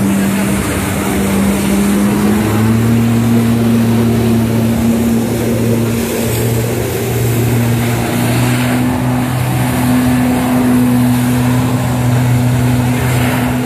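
A personal watercraft's engine runs at high revs to drive a flyboard, with the rush of the water jets spraying underneath. The engine note steps up and strengthens about two and a half seconds in, then holds steady.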